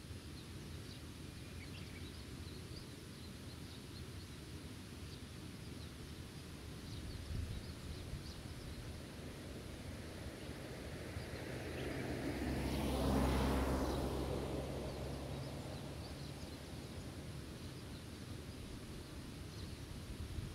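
Open-air meadow ambience: a steady hiss of background noise with faint, scattered bird chirps. A little past the middle a motor vehicle passes, its sound swelling over a few seconds and then fading away.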